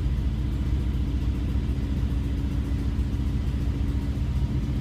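Volkswagen Kombi's engine idling steadily while it warms up, heard from inside the van's cabin as a low, even rumble.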